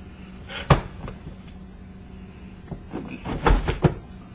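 Parts of an old ceiling fan knocked and handled while it is being taken apart: one sharp knock a little under a second in, then a quick run of clunks and rattles near the end.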